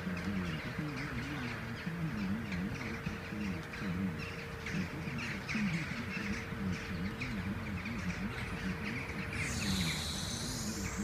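A flock of crows calling, with many short calls overlapping throughout, over a steady low hum.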